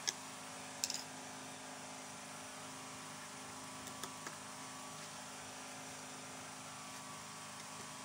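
A steady low hum with a few short clicks: one just after the start, a quick cluster a little under a second in, and two more around four seconds.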